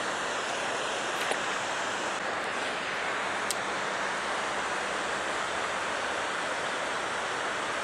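Steady rushing noise, even and unbroken, with a faint click about a second in and another about three and a half seconds in.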